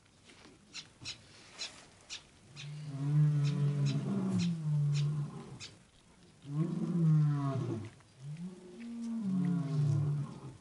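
Tiger cubs growling as they feed: three long, low growls whose pitch rises and falls, after a few seconds of sharp wet clicks of chewing and licking meat.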